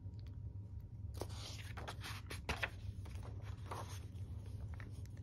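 Paper pages of a picture book being turned by hand: a few faint rustles and scrapes, from about a second in to about four seconds in, over a low steady hum.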